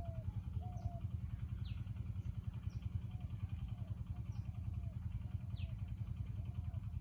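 Village outdoor ambience: a steady, rapidly pulsing low drone, with short arched calls repeating over it and a few high, quick downward chirps.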